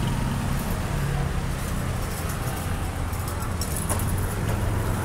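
Street traffic: vehicle engines running close by with a steady low drone, amid general city street noise.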